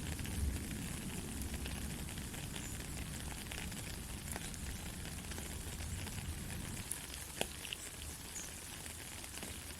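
Soft rain falling: a steady hiss with scattered louder drops ticking now and then, the sharpest about seven and a half seconds in.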